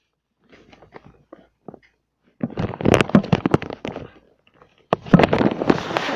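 Loud crackling and rubbing handling noise as a fallen camera is picked up and fumbled, with something rubbing right over its microphone. There are a few faint ticks first, then two dense crackling stretches of a second or two each.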